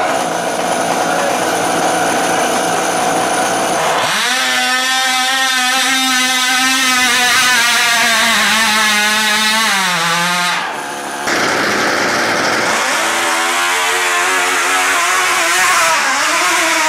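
Small nitro model engines on radio-controlled micro-pulling tractors running flat out while pulling a weight sled, a high, buzzing note much like a chainsaw. In the middle stretch the pitch sinks slowly as the engine labours under the sled. There is a brief break just before the halfway point, then another tractor's engine carries on at full throttle.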